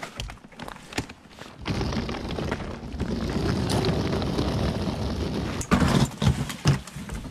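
A wheeled suitcase rolling over rough asphalt: a steady rumble for a few seconds. Near the end come several loud knocks and thumps as a door is opened.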